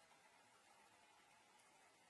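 Near silence: a faint, even hiss, with a faint click about one and a half seconds in.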